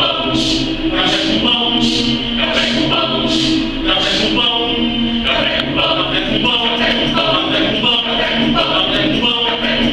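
Mixed choir of men and women singing a cappella, with crisp hissed consonants landing in a steady rhythm about every 0.7 seconds through the first half, then a busier, denser passage.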